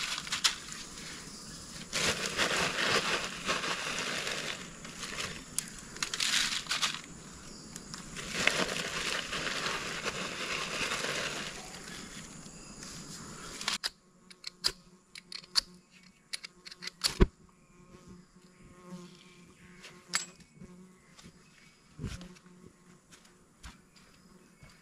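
Ferrocerium rod scraped hard over and over to throw sparks onto sawdust tinder: a harsh, rasping scrape in repeated spells. It stops abruptly about fourteen seconds in, leaving only scattered light clicks and crackles.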